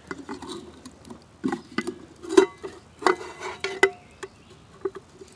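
Metal lid clinking and knocking against a cooking pot as it is fitted into place: a run of irregular light metallic knocks with a short ring, thickest from about a second and a half in to about four seconds.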